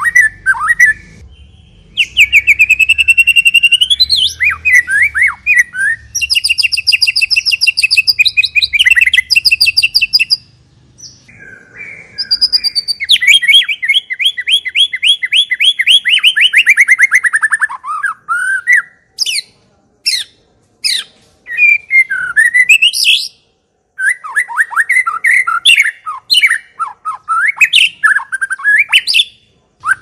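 White-rumped shama (murai batu) singing loudly in varied phrases: fast trills of rapidly repeated notes and quick rising whistled sweeps, with short pauses between phrases.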